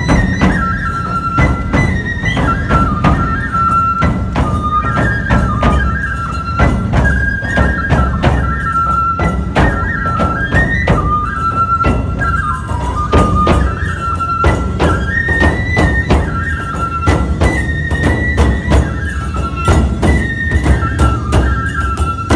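Nebuta bayashi festival music played live: bamboo flutes carry a high, stepping melody over steady taiko drumming and a dense, fast clatter of metal hand cymbals.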